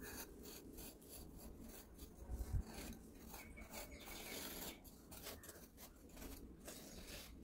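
A small wooden-handled metal scraper dragging through damp sand in repeated short, soft scraping strokes, digging out a curved trench.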